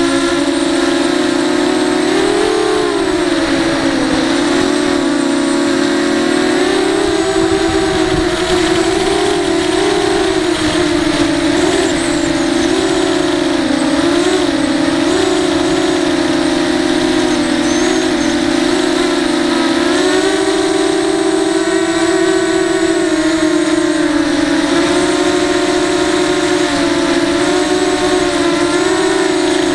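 ZMR quadcopter's brushless motors and 5-inch bullnose propellers buzzing in flight, heard from the camera on board. The pitch wavers up and down throughout as the throttle changes.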